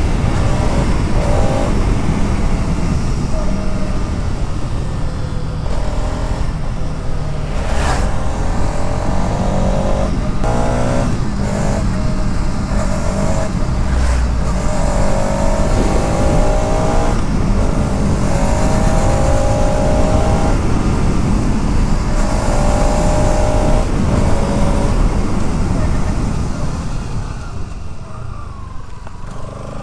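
Bajaj Pulsar RS 200's single-cylinder engine being ridden hard, its exhaust note rising in pitch again and again as it pulls through the gears, with wind rushing over the microphone. Near the end it eases off and gets a little quieter.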